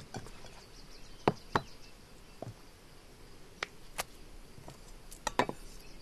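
Scattered light knocks and clicks of a kitchen knife and utensils on a wooden counter and cutting board during food preparation, about seven in all at irregular spacing, over a faint steady high hiss of outdoor insects.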